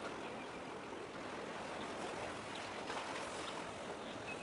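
Sea water washing steadily against the concrete tetrapods of a breakwater.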